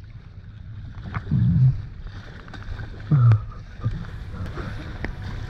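Paddles dipping and water splashing along the side of an inflatable kayak as it is paddled through choppy sea, over a steady low rumble of water and wind on the microphone. Two louder dull thumps come about a second in and again about three seconds in.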